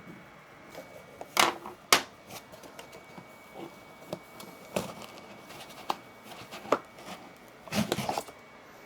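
Scattered clicks and knocks of hands handling the plastic top cover and packing of a Eufymake E1 flatbed UV printer. Two sharp knocks come about a second and a half in, and a short cluster of clatter comes near the end.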